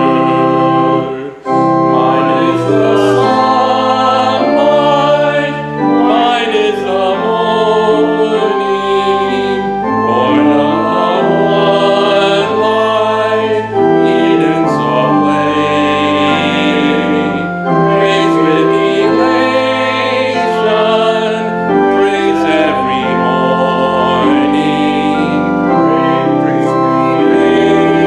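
A hymn sung with organ accompaniment: held organ chords under a singing voice carrying the melody, with a short break between phrases about a second in.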